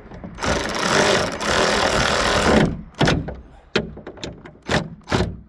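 A tool runs the last hood bolt in for about two seconds in one dense, steady burst of noise. A few separate short clicks or knocks follow as the tool comes off the bolt.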